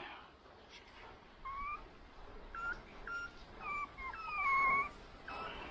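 Young puppies whining: about six short, high-pitched whimpers, several falling in pitch, starting about a second and a half in, with one longer drawn-out whine just past the middle.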